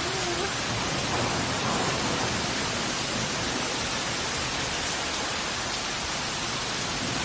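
Steady, dense hiss of a downpour of hail and rain falling, with no let-up.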